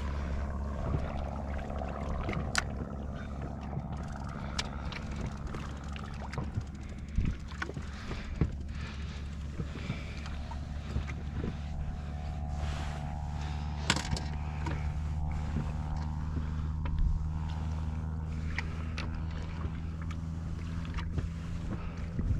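Sea water slapping and lapping against the tubes of a small inflatable boat, an Excel Vanguard 365, as it drifts, with scattered small knocks and a steady low drone underneath.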